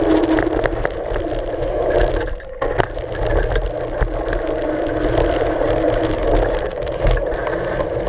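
Mountain bike rolling along a dirt and gravel trail, heard from a camera mounted low on the front fork. The tyre crunches over the ground and wind rushes past the microphone, with scattered short clicks and knocks from the bike. The noise dips briefly about two and a half seconds in.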